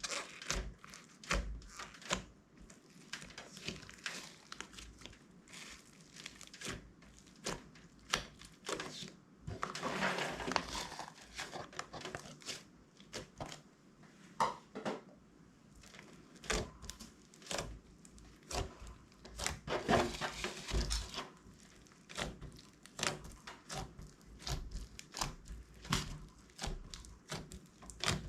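Clear slime being kneaded and stretched by hand, giving many small sticky clicks and crackles, busiest about ten and twenty seconds in.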